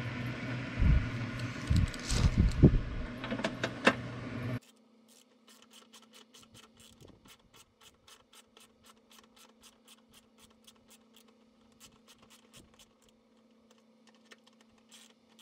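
Bolt being fitted into a windshield washer reservoir: clicks and knocks of handling over a steady low hum that cuts off suddenly about four and a half seconds in. Then a long run of faint, evenly spaced ratchet clicks, about four a second, as the bolt is run in.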